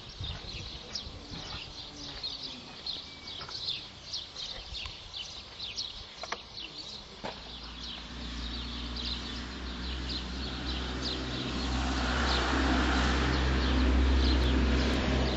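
Small birds chirping over and over in short high notes. From about halfway a low steady hum with a rushing noise builds up, loudest near the end.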